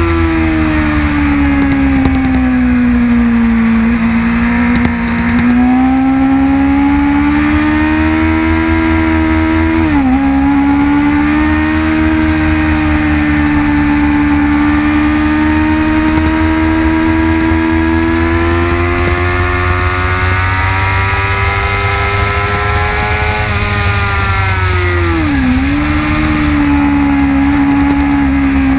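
2006 Kawasaki ZX-6R 636's inline-four engine running hard on track. Its pitch falls over the first few seconds, then climbs, with a quick sharp dip about ten seconds in. It holds nearly steady through a long stretch, then falls again with another quick dip near the end.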